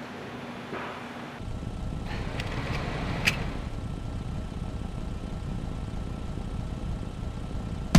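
Low steady rumbling noise, like a running vehicle, that grows louder about a second and a half in, with one short sharp higher sound about three seconds in.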